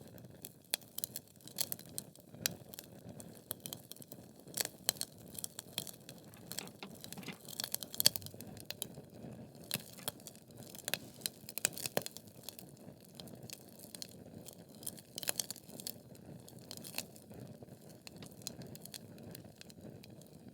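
Wood fire burning in a fireplace: logs crackling and popping in irregular sharp snaps over a low steady rumble of the flames. The snaps come thickest in the first half, with the loudest pop about eight seconds in.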